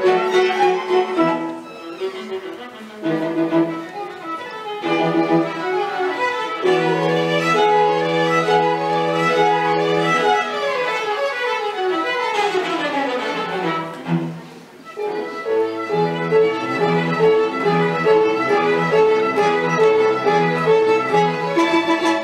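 Live chamber music from a string quartet with French horn: bowed violins, viola and cello playing a melodic passage. A little past the middle come sweeping rising and falling runs, a brief dip, then the music builds again and stops right at the end.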